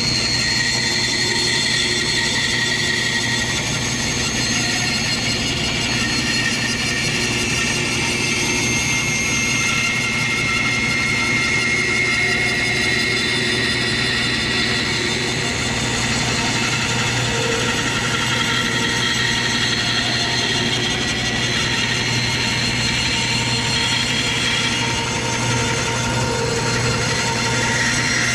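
Bandsaw running and its blade cutting slowly through a thick glued-up block of wood layers: a steady motor hum under a high whine from the cut that shifts slightly in pitch as the piece is turned along the curve.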